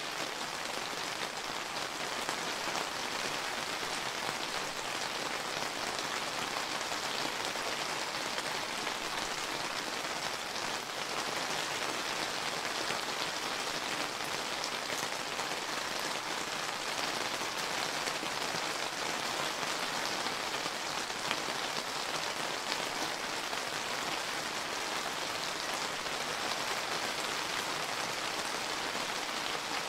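Steady summer rain falling, a dense even patter of many raindrops hitting surfaces.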